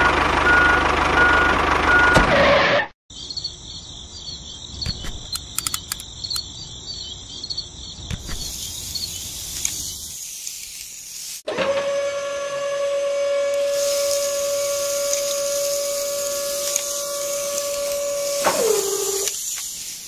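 A toy RC tractor running with a pulsing reversing beeper for the first few seconds. Then a quieter stretch with high chirping and a few clicks. From about halfway, the small electric motor of the model tipping trailer whines steadily as it raises the bed to dump sand, dropping in pitch just before it stops.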